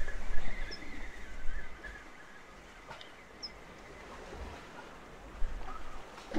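Wind gusting on the microphone over the steady wash of the sea against rocks, strongest in the first couple of seconds. Short high chirps sound twice.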